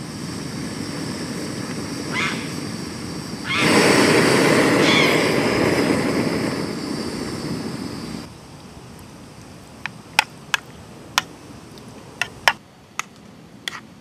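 Gas camping stove burner lit and running with a rushing hiss. It gets much louder for about four seconds in the middle while the flame flares orange, then drops to a quieter burn. A few sharp clicks and taps follow near the end.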